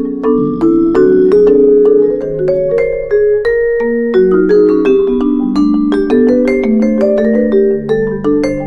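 Instrumental music: a gentle melody of struck, ringing notes over held lower notes.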